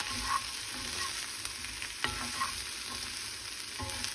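Cubed grilled steak, onions and green peppers sizzling in a skillet as they are stirred. The steady frying hiss is broken by a few sharp clicks of the utensil against the pan, about two seconds in and near the end, each with a brief metallic ring.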